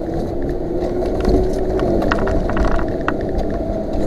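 Off-road vehicle's engine running as it drives over rough, icy ground, with scattered knocks and rattles.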